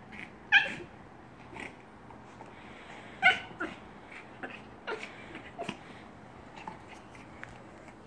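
Silver Yorkshire terrier making short, high-pitched cries in frustration at a treat-filled rubber chew toy he can't get the snacks out of. Two loud cries about half a second and about three seconds in, then several softer ones.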